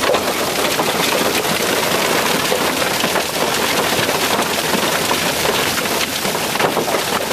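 Hailstorm: a dense, steady clatter of many small hailstones pelting down, mixed with the rush of heavy precipitation.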